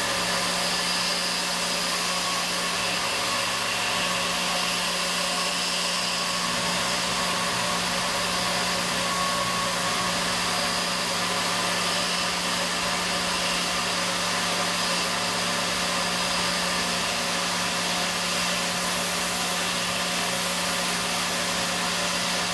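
CNC milling machine spindle running steadily, a quarter-inch chamfer mill engraving a logo into a small metal badge pin under flood coolant: an even whir with a steady whine and coolant hiss.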